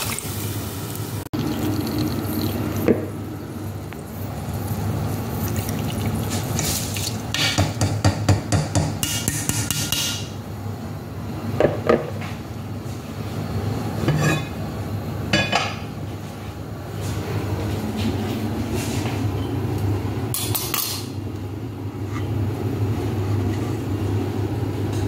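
Kitchen cooking sounds: water poured into a stone-coated cooking pot, then a run of sharp clinks, clatters and knocks from the pot and utensils, densest a few seconds in, over a steady low hum.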